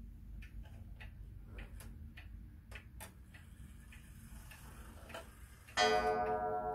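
Hermle key-wound Vienna pendulum wall clock ticking steadily. About six seconds in, its movement strikes once: a loud bright ringing tone of many pitches that slowly fades.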